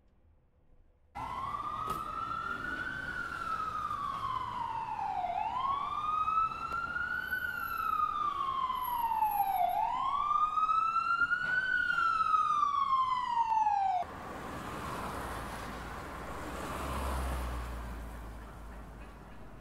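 Police car siren wailing: three slow rising-and-falling sweeps, each about four seconds long, that cut off suddenly. Afterwards a steady hiss of road noise.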